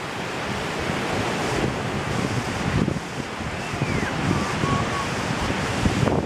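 Ocean surf breaking and washing ashore, with wind buffeting the microphone in gusts. A faint high chirp sounds about halfway through.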